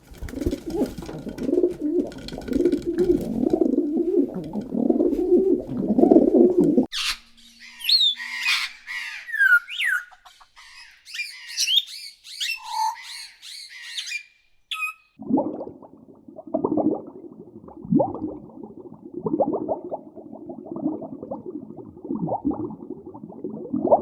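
A run of animal sounds: a low, rough sound for about seven seconds, then birds chirping and whistling with quick rising and falling notes, then, after a short break, low repeated calls like a pigeon cooing.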